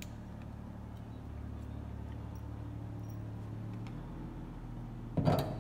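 A steady low hum with a few faint ticks, then near the end a loud metallic clank of a slide hammer hitting its stop, yanking on a stud welded to the dented steel door skin to pull the dent out.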